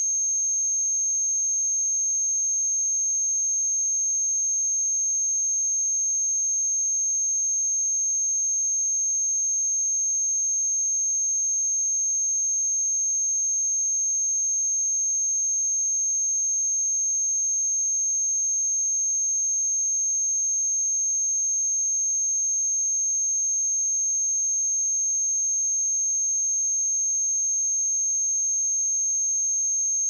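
A steady pure sine-wave test tone at 6407 Hz, a single high-pitched whistle-like pitch held without change.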